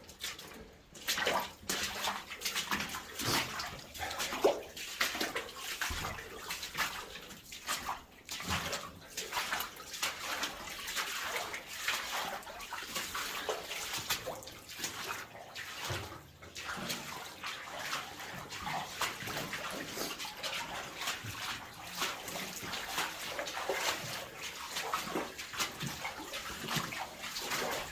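Water splashing and sloshing continuously, with an irregular churning texture.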